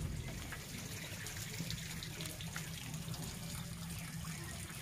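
Water from a washing hose spraying and splashing on a mud-caked backhoe loader, a steady hiss of running water. A faint low hum runs underneath.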